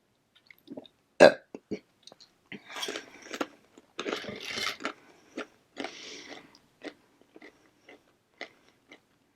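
Tortilla chips being bitten and chewed close to the microphone: irregular crackly crunching and mouth clicks, with one short, loud sound about a second in.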